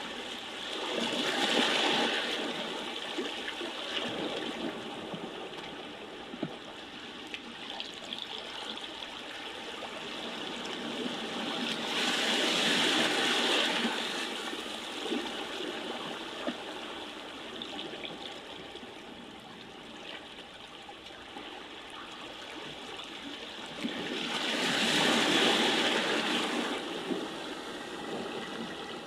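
Continuous rushing water noise that swells and ebbs slowly, peaking three times about twelve seconds apart.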